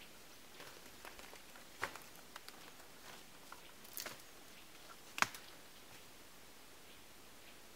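Footsteps in snow and dry brush, with a few sharp snaps of twigs underfoot; the loudest snap comes about five seconds in.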